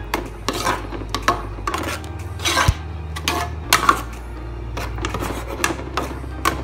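Metal spoon clinking and scraping against the sides of a metal pot while stirring thick spaghetti sauce, in irregular clinks about two or three a second. Background music runs underneath.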